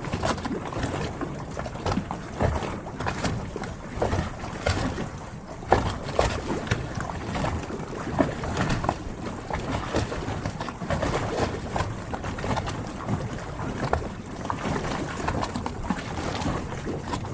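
Harbour water lapping and splashing irregularly against the hulls of moored yachts, with a constant wash of water underneath.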